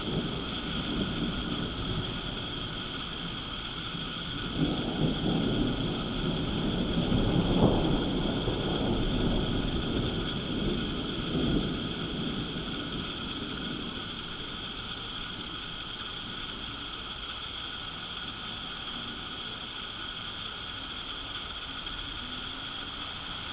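Thunder rumbling from a lightning storm: it builds about a fifth of the way in, peaks near the middle, and fades away over several seconds.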